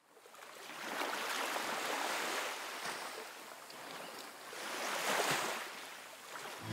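Ocean surf: a rushing wash of waves that swells in over the first second, eases off, and swells again about five seconds in.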